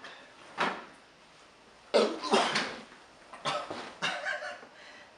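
A man coughing in short bursts, about five times, the loudest pair about two seconds in.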